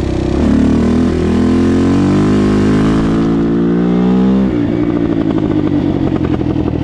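Kawasaki KFX400 quad's single-cylinder four-stroke engine pulling under throttle. Its revs climb steadily for about four seconds, then drop suddenly and settle to a lower, pulsing run.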